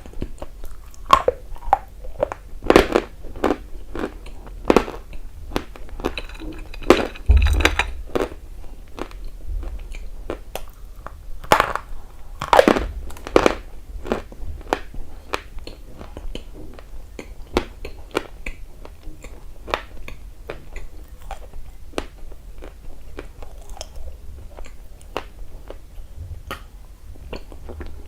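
A person biting into and chewing something dry and brittle, with loud sharp crunches. There are several hard bites in the first half, then a run of smaller chewing crunches.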